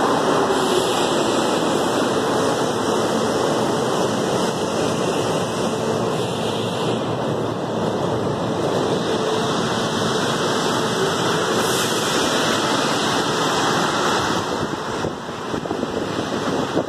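Rubber-tyred Mexico City Metro NM-83A and NM-79 trains moving past a platform: a steady loud rush of tyres and air, with a faint whine from the chopper traction equipment underneath.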